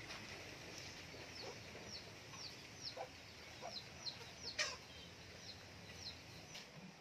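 Backyard chickens clucking faintly among a steady run of short, high, falling chirps, roughly two a second. One louder falling call comes a little past halfway.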